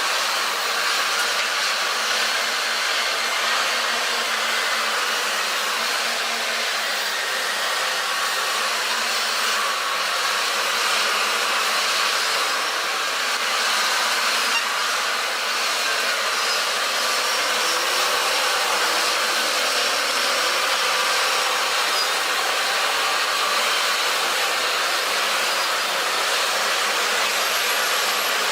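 Steady machine whir with a hiss, thin and without bass, holding an even level with no breaks or impacts.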